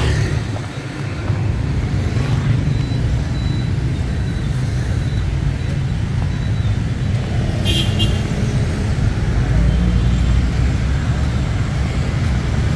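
Busy road traffic of motorbikes and cars passing close by, engines running in a steady low rumble. A short shrill sound cuts in about eight seconds in.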